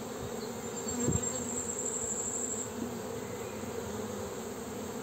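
A colony of honeybees buzzing steadily from an opened hive, a dense continuous hum, with a soft knock about a second in.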